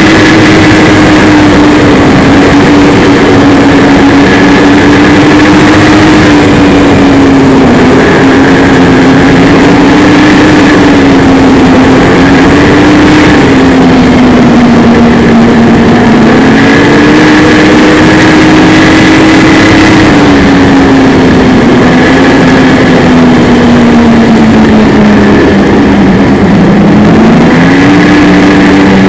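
Snowmobile engine running steadily at speed, its pitch rising and falling as the throttle is eased and opened, loud throughout.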